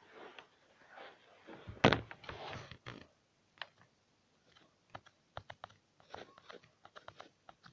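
Person moving about in a small room: a dull thump about two seconds in with a second of rustling after it, then scattered light clicks and taps.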